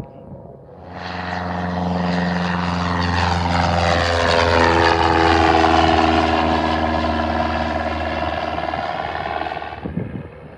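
Single-engine Cessna propeller plane passing close by on its takeoff run. The engine and propeller drone swells in about a second in, is loudest around the middle, and falls in pitch as the plane goes past, then drops away sharply near the end.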